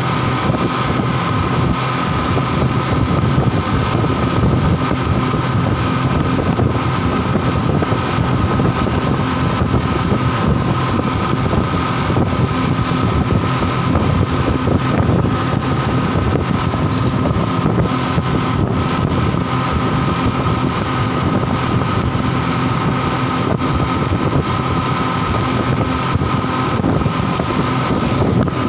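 Passenger speedboat running at speed: a steady engine drone with a few constant tones, mixed with wind and water rushing past.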